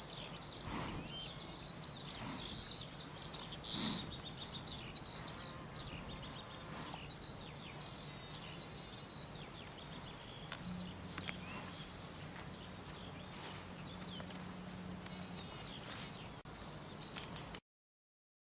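Many small birds chirping, quick short calls over a faint outdoor hiss and a low steady hum. The recording cuts off suddenly near the end.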